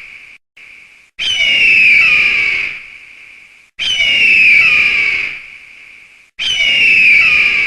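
Eagle screaming: three loud, long screeches, each sliding down in pitch, repeating about every two and a half seconds.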